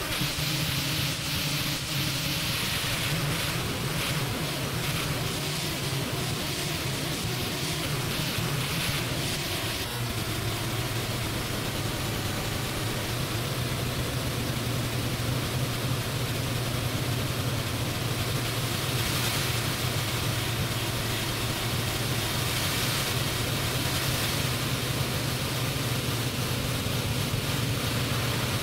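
Steady ambient drone soundtrack: a low sustained hum under a wash of hiss-like noise, with the hum shifting a little lower about ten seconds in.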